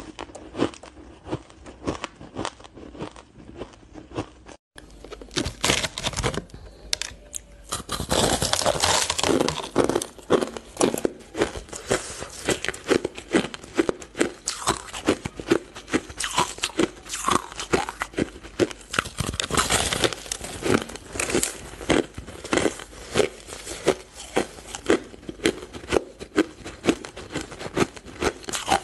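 Powdery frozen ice crunching close to the microphone, crisp crackly crunches about twice a second. About five seconds in the sound changes and soon becomes louder and denser.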